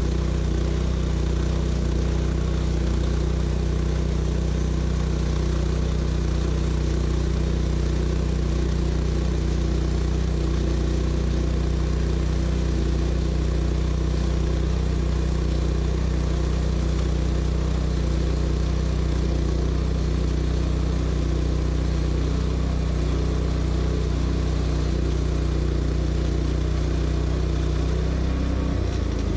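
Portable sawmill's gas engine running steadily at constant speed.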